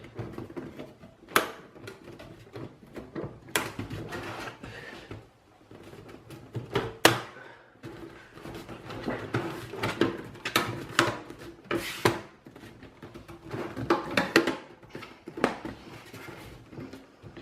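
A PC case's side panel being pushed onto the chassis and slid across into place: scraping and rubbing punctuated by knocks and clicks, the loudest about 1.5, 3.5, 7 and 12 seconds in.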